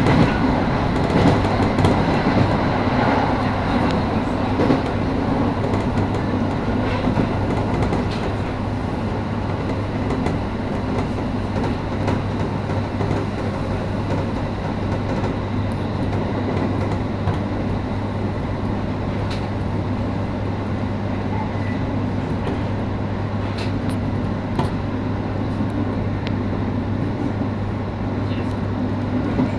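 Electric commuter train running at speed, heard from inside the car: a steady rumble of wheels on rail with a constant low hum, and a few sharp clicks scattered through.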